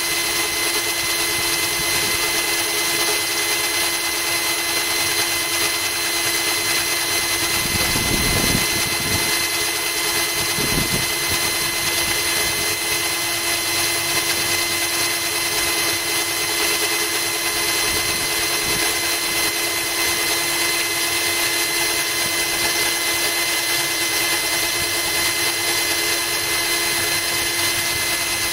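Cordless drill running at a steady speed, its bit grinding into glass under a trickle of hose water, with a steady whine. A couple of brief low knocks come about eight and eleven seconds in.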